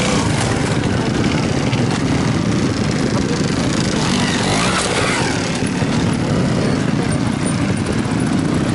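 Trial motorcycle engines running steadily, revved as riders hop the bikes up onto a rock step.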